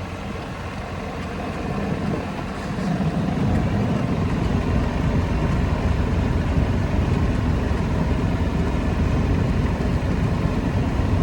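Small vehicle driving along: a steady rumble of motor and wheels, growing louder about three seconds in.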